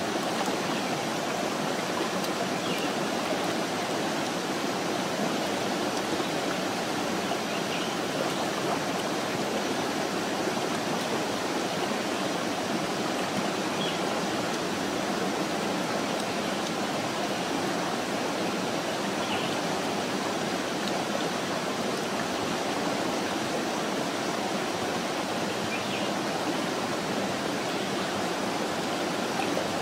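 Steady rushing of a stream running over rocks.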